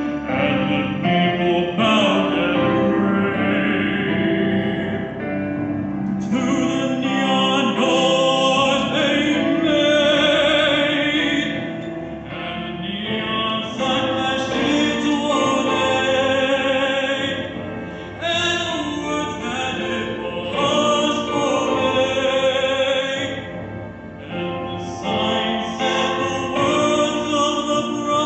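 A young male voice singing a powerful, sustained ballad vocal over instrumental backing with piano and orchestral parts.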